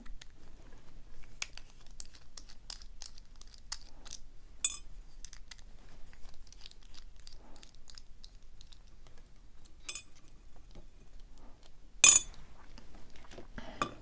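Small clicks and scrapes of a screwdriver backing out the cam screws on the back of a brass Lockwood mortise cylinder, with a few sharper metal ticks. Near the end comes one sharp clack, the loudest sound, as a part meets the metal tray.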